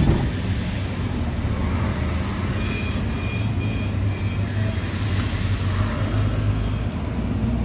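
Truck engine idling steadily with an even low hum. A sharp click comes about five seconds in.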